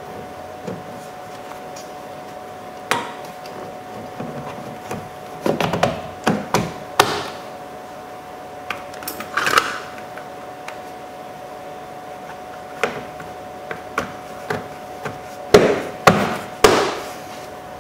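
Scattered knocks and clicks of a plastic car door panel and its fasteners being fitted back in place, ending with three loud thumps near the end as the panel is pressed home.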